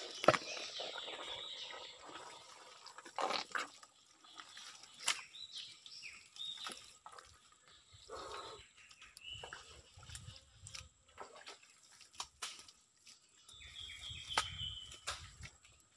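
Mangrove mudbank ambience: scattered wet clicks and drips, with short high bird chirps that are clearest near the end.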